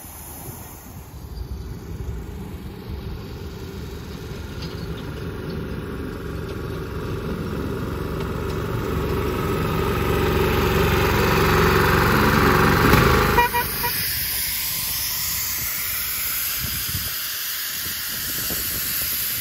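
A miniature railway locomotive running along the track, growing steadily louder as it comes close and peaking about two-thirds of the way through. The sound then changes abruptly to a steady hiss from a miniature steam locomotive standing in steam.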